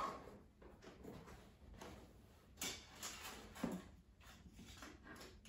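Faint kitchen handling sounds: silicone oven mitts being pulled on, then two soft knocks and some rustling as the mitts reach into the Instant Pot's stainless steel inner pot to lift out sliders sitting on foil.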